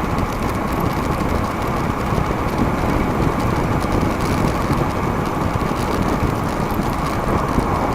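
Steady rush of wind and road noise from riding a DIY e-bike at about 24 mph, with no distinct motor whine: the e-bike is running quietly.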